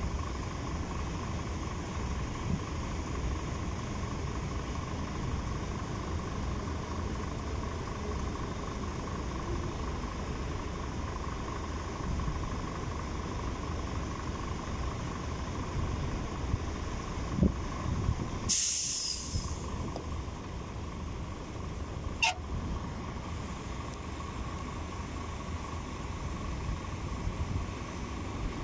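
Steady low rumble of heavy engines, with a truck's air brake releasing in one loud hiss lasting about a second, about two-thirds of the way through. A single sharp click follows a few seconds later.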